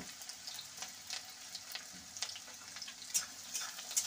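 Chopped onions sizzling in hot oil in a steel kadai: a steady high hiss with scattered crackles and pops, a few louder pops near the end.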